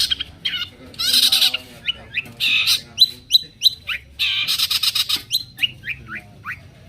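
Long-tailed shrike (cendet) singing: loud harsh rasping bursts alternating with runs of short, quickly falling whistled notes, a few a second.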